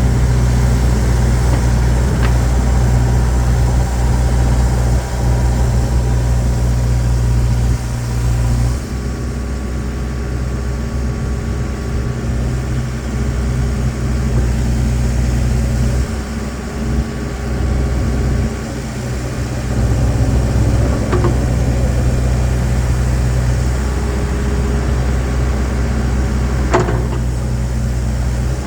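Case 590 Super M Series III backhoe's diesel engine running steadily, its note changing about nine seconds in and again a little past the middle as the machine works, with a sharp metallic knock near the end.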